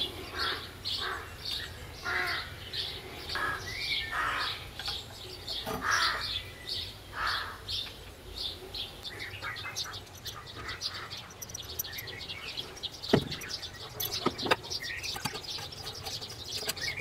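Small birds chirping, a rapid run of short high calls repeating about two or three times a second, with one sharp click about thirteen seconds in.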